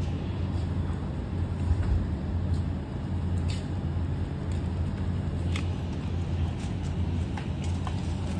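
Steady low rumble of vehicle traffic, with a few faint clicks of hand tools.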